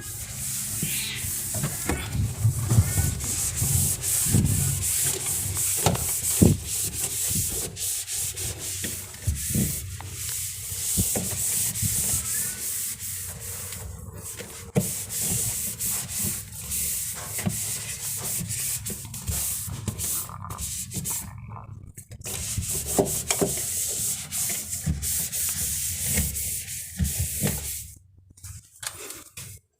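Rubbing and scrubbing strokes of a refrigerator's interior being wiped clean by hand, with a steady hiss and irregular scrapes.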